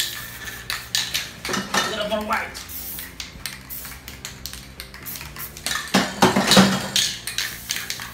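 Metal spray paint cans clinking and rattling in quick, uneven clicks, loudest about six seconds in.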